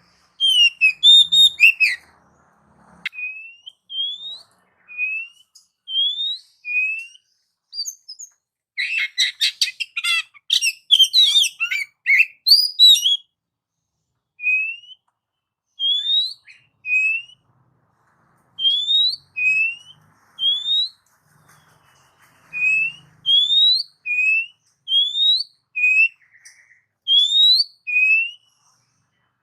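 Oriental magpie-robin (kacer) singing: a run of short, clear rising whistles about once a second, broken about a third of the way through by a burst of fast, varied chattering notes.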